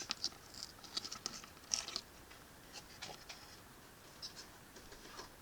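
Light, irregular plastic clicks and scratches as a small plastic toy gun is rotated and pushed out of its packaging, busiest in the first two seconds, then sparse.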